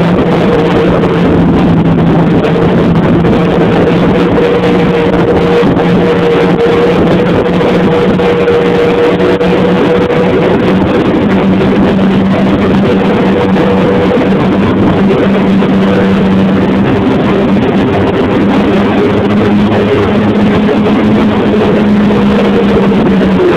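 Snowmobile engine running steadily at speed, a loud drone over hissing noise, its pitch shifting slightly a couple of times.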